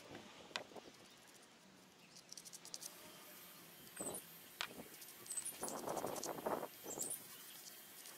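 Sawdust shaken from a glass jar onto a wooden board, a soft grainy rustle lasting about a second, with light taps and clicks as the jar and its lid are handled.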